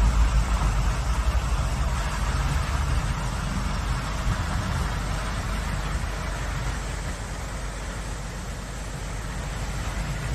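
Fast-flowing stream rushing over rocks: a steady rushing noise, with a low rumble of wind on the microphone. It grows a little softer in the second half.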